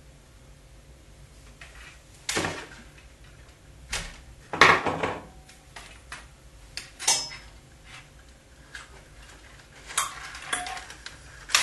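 Scattered clatters and rustles of hands handling thin lamp wire and a pair of pliers against chipboard and wooden battens, loudest a little before halfway through.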